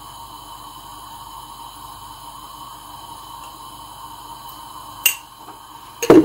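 A sharp click about five seconds in as a spoon knocks against a clay salt pot, then a short, louder clatter of the pot's ceramic lid being set back on. A steady faint hum runs underneath.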